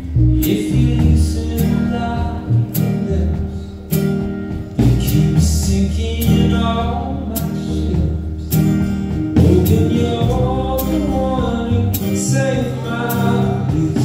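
Live band playing a song, heard from the audience: strummed acoustic guitars and an electric guitar over bass and drums, with a melodic line bending in pitch above them.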